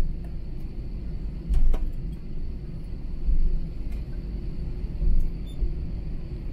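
Airbus A321 cabin noise while taxiing: a steady low rumble, with a low bump swelling up about every second and a half as the aircraft rolls. A faint steady high whine and a few light clicks and rattles sit under it.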